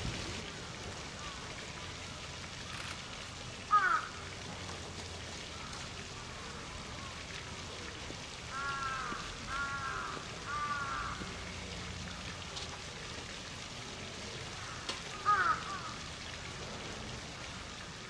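Steady rush of falling water from a fountain, with birds calling over it: a sharp falling call about four seconds in and again near the end, and a run of three arched calls in the middle.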